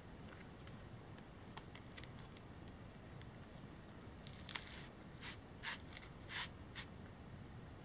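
Faint crinkling and tearing of packing tape as cotton sennit rope is pulled free of it while working a monkey's fist knot. Scattered light ticks, then a handful of short crackles in the second half.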